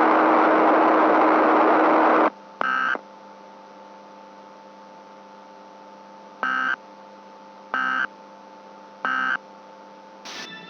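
Loud hiss with a steady low tone that cuts off suddenly after about two seconds. A quiet electronic hum follows, with four short electronic beeps over it, the last three about a second and a half apart, and a sharp click near the end.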